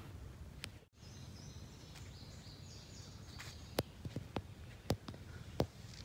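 Outdoor woodland ambience with a bird singing high, stepped phrases, then a few irregular sharp crunches of footsteps on dry grass and ground. The sound cuts out completely for a moment about a second in.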